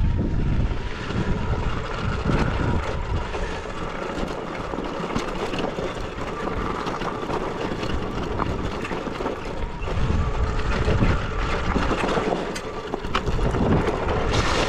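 Sur-Ron electric dirt bike riding down a loose, rocky dirt trail: a steady rush of wind on the microphone with tyres crunching over gravel and many small knocks and rattles from the bike.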